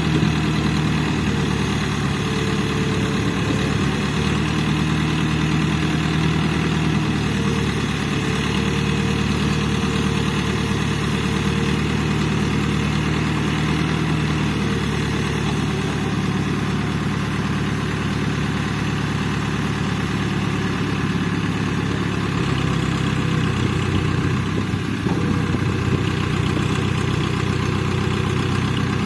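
Diesel engine of a Hydra mobile crane running steadily while the crane works a lifted boat, its pitch stepping down a little about 22 seconds in.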